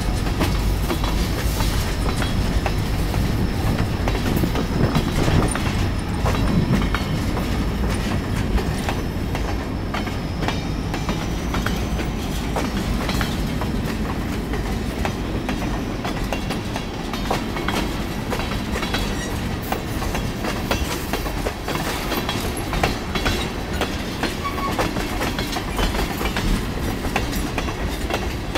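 CSX freight train's cars rolling past at a grade crossing: a steady low rumble of wheels on rail, with frequent sharp clicks and clacks as the wheels cross the rail joints.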